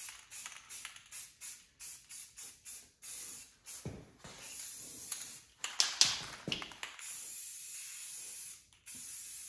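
Aerosol spray-paint can spraying, first in a quick series of short bursts, about three a second, then in longer steady sprays of a second or two, with a few sharp clicks about six seconds in.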